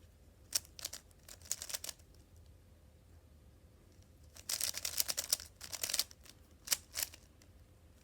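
3x3 Rubik's cube being turned quickly during a timed solve: bursts of rapid plastic clicking as the layers turn, densest a little past halfway, with short pauses between runs of moves.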